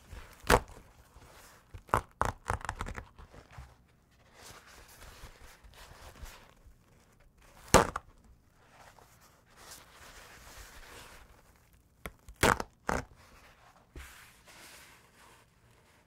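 Paper towels being handled: a sheet is torn from the roll and crinkled, with several sharp rips and crackles spread through and softer paper rustling between them.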